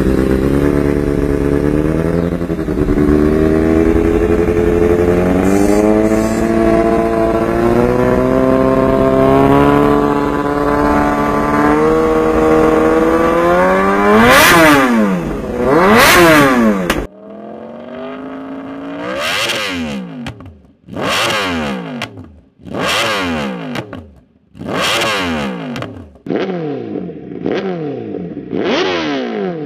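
Kawasaki ZX-10R inline-four running through an SC-Project muffler at a steady, gently varying engine speed, then revved hard twice. About 17 seconds in it gives way to a Honda CBR1000RR-R Fireblade with an SC-Project exhaust, blipped sharply about every two seconds, each rev rising and dropping quickly.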